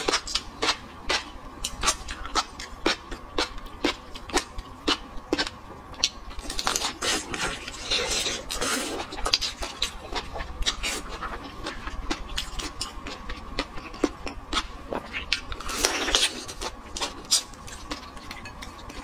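Close-miked mouth sounds of eating shell-on shrimp: a run of sharp, wet lip-and-mouth smacks and clicks, about two a second, with longer wet sucking sounds about seven seconds in and again near the end as the shrimp is drawn against the lips.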